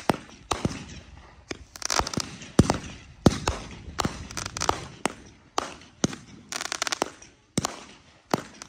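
Aerial fireworks going off: a string of irregular sharp bangs, one or two a second, with dense crackling clusters about two seconds in and again around seven seconds. The loudest bangs come near the middle, and there is a short lull before the end.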